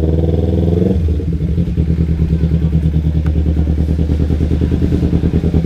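Kawasaki Ninja 250's parallel-twin engine running at low revs as the bike rolls slowly. The engine note drops about a second in, then settles into a steady throb.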